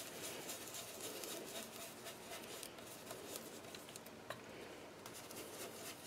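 Faint, scratchy rubbing of a small ink blending brush working ink onto die-cut cardstock petals, with one light tick about four seconds in.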